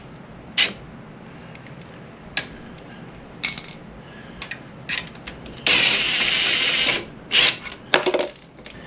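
Hand tools and brake caliper parts clinking and knocking, metal on metal, as a motorcycle front brake caliper is unbolted and worked loose. There is a rasping scrape of about a second just past the middle.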